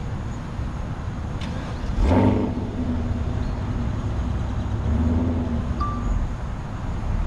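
V8 car engine idling with a low rumble. It is revved once, loudly and sharply, about two seconds in, and held at a raised, steady note that swells again around five seconds.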